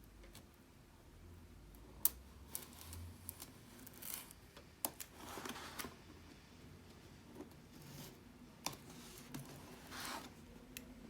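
Product packaging being opened by hand: scattered sharp clicks and taps, the loudest about two seconds in, between short scraping, rustling swishes of box and wrapping.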